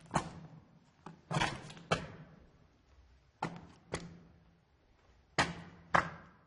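Footsteps on concrete in a tunnel, slow and uneven, coming in loose pairs of steps with pauses between, each step trailed by an echo. About seven steps; the last falls near the end and then the sound stops.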